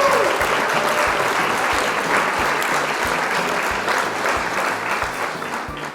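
Clapping and applause from a crowd, steady, easing off slightly and fading out at the very end.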